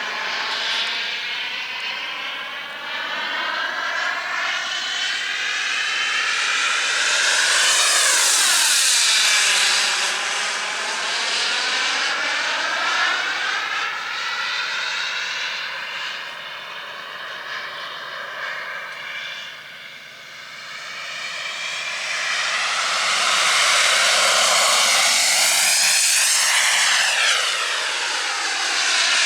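JetCat P100RX model jet turbine of an Avonds F-15 RC jet in flight. The jet whine and rush swell loudly as the plane makes two passes, about eight seconds in and again near the end, and fade between them.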